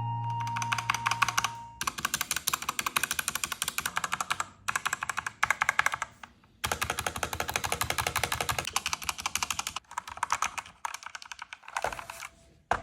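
Fast typing on a budget 60% mechanical keyboard: rapid key clacks, many a second, in runs of a few seconds with short pauses between.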